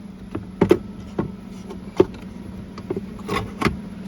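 Handling noise of a plastic dashboard speaker pod being unplugged and worked loose: a series of sharp plastic clicks and knocks, over a steady low hum.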